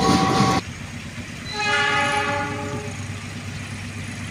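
A diesel locomotive passes close by with its horn sounding, cut off abruptly within the first second. A more distant locomotive horn then sounds a chord of several tones for about a second and a half, fading out over a low steady hum.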